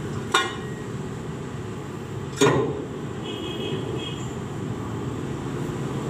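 Two sharp metal clanks about two seconds apart as cast engine parts are set against the cylinder head during reassembly, over a steady low background rumble.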